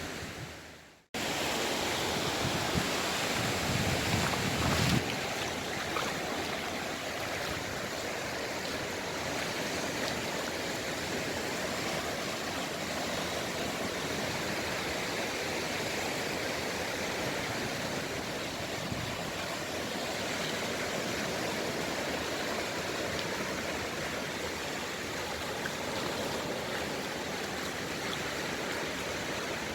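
Steady rushing water, a continuous even wash, after a brief dropout about a second in.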